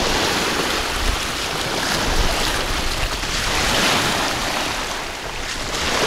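Small waves of the Sea of Azov breaking and washing up a shallow sandy shore, with wind rumbling on the microphone.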